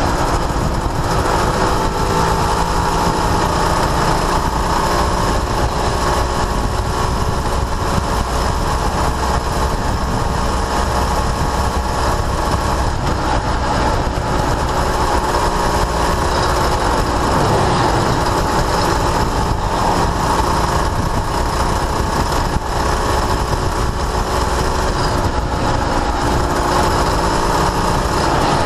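Honda NSR250R's two-stroke V-twin running under way, heard from a camera mounted on the bike, with the ragged, broken-sounding note that the owner likes. Its pitch rises and falls with the throttle, dipping briefly about halfway through.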